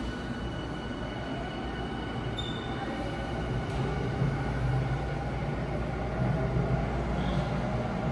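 Electric commuter train running into an underground station platform, its rumble growing louder about halfway through, with faint steady high whine tones over it.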